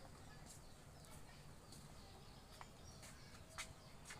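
Faint bird chirps and short calls over a quiet background, with a few faint clicks in the second half.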